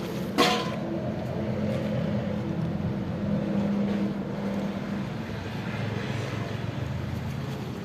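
A motor vehicle's engine running, a steady hum that drifts in pitch, with one sharp click about half a second in.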